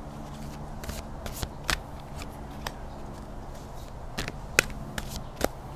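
A tarot deck being shuffled by hand, with irregular sharp card snaps and taps, one louder snap near the end.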